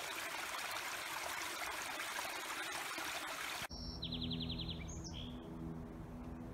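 Small mountain stream rushing over rocks, a steady wash of water. It cuts off suddenly a little over halfway through. Birds chirping then follow, with a rapid trill, over a low steady hum.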